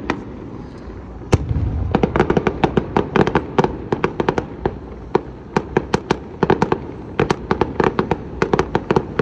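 Fireworks show: rapid, irregular cracks and pops in dense volleys. It opens with about a second of quieter rumble, then a sharp bang, and the crackling runs on thick and fast.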